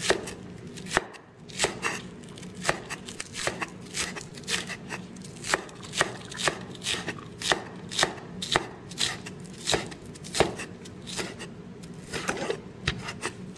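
A steel cleaver chopping green onions on a thick wooden cutting board: a steady run of sharp knocks of the blade on the wood, about two to three a second.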